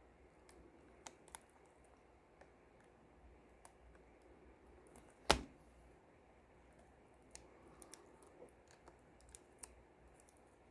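Faint scattered clicks and taps of small plastic and metal parts being handled while a laptop display cable connector is fitted, with one sharper, louder click about five seconds in.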